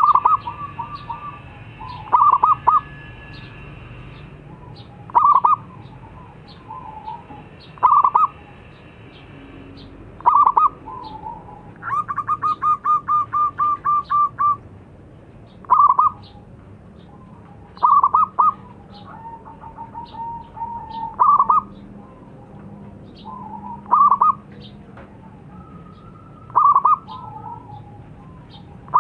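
Zebra dove (perkutut) singing: short bursts of cooing notes repeated every two to three seconds. One longer run of rapid staccato notes comes near the middle.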